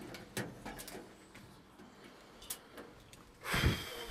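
Door being handled as someone goes in: a few faint clicks, then a heavier thud with a short rush of noise about three and a half seconds in.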